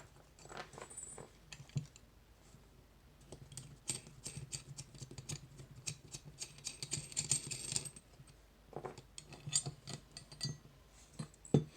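Small metal clicks and taps of a MIWA magnetic slider cam lock being taken apart by hand, its parts and the tools knocking together in irregular runs. The clicks are thickest in the middle of the stretch.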